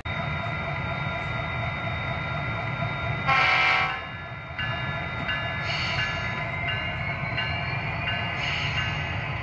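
Model freight train rolling past on the layout track with a steady low rumble of wheels and running gear, under steady electronic-sounding tones. About three seconds in, the locomotive gives one short, loud horn blast.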